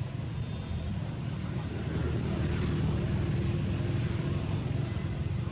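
Steady low outdoor rumble with a faint hiss above it, with no calls from the monkeys.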